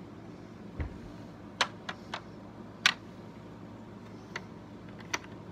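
Plastic LEGO bricks clicking as pieces are handled and pressed onto a model. A soft thump comes about a second in, then about six short, sharp clicks, the loudest near three seconds in.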